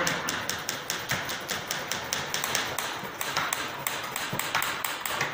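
Manual typewriters clacking as keys are struck, rapid, irregular keystrokes, several a second.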